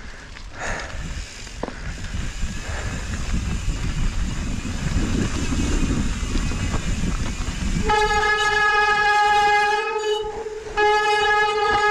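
Mountain bike tyres rumbling over a dirt trail, then about eight seconds in a disc brake squeals in a loud, steady, single-pitched howl. It breaks off for about half a second and starts again near the end.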